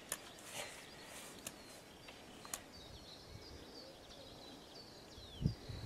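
Birds chirping outdoors: short, high, falling chirps repeated through the second half, with a few faint clicks earlier and a low thud near the end.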